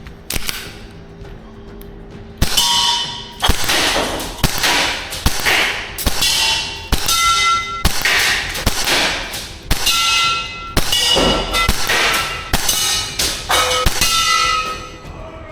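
Airsoft gun firing a steady string of shots, the BBs clanging on metal targets that ring briefly after each hit, about one hit every two-thirds of a second from a couple of seconds in.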